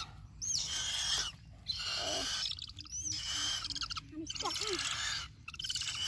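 Young raptors giving a series of harsh, hissing screeches, about five calls of roughly a second each with short breaks between them.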